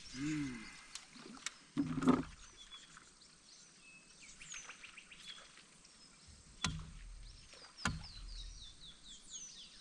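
Birds calling with short, high chirps that slide downward, ending in a quick run of them, with two sharp knocks in the later half.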